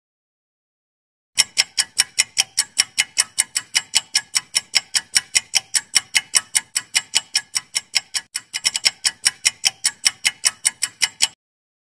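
Clock-ticking sound effect of a quiz countdown timer: rapid, even ticks, about five a second. It starts a little over a second in, stumbles briefly about two thirds of the way through, and stops shortly before the end.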